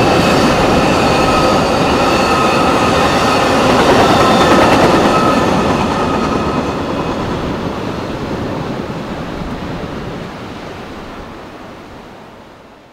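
Amtrak California bilevel passenger train running across a steel trestle bridge: a loud rumble of wheels on rail with a few steady high-pitched tones ringing over it. It fades steadily after about five seconds as the train moves away.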